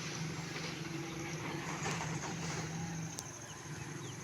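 Outdoor background with a steady low mechanical hum that stops about three seconds in, and a few short high chirps near the end.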